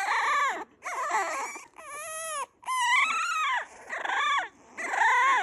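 French Bulldog puppy crying: a run of about six whining cries, each rising and then falling in pitch, with short breaks between them.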